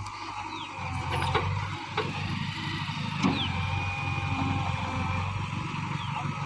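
JCB 3DX backhoe loader's diesel engine running steadily, with a thin high whine above it and a few sharp metallic clanks about one and a half, two and three seconds in.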